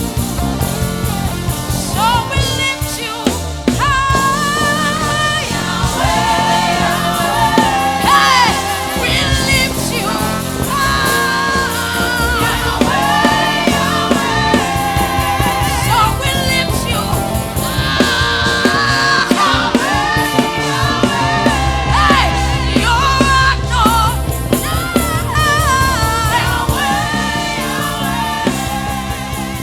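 Live gospel worship music: a lead singer with backing voices over a band with bass and drums.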